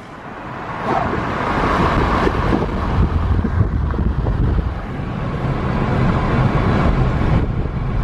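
A car driving at road speed: steady road and wind noise, growing louder about a second in and then holding.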